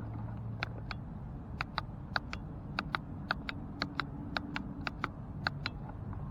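Light, irregular clicks and taps, about three a second, as something small knocks against the car's trim and screws, over a steady low hum.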